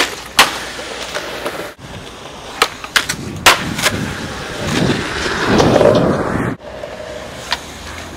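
Skateboard: several sharp cracks of the board popping and slapping down on concrete, between stretches of wheels rolling, which swell loudest about five to six and a half seconds in. The sound drops out abruptly twice.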